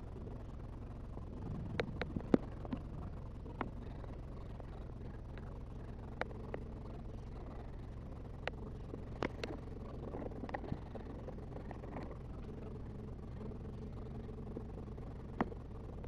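Steady low hum of aquarium equipment with about a dozen sharp clicks and taps scattered through it, the loudest about two seconds in.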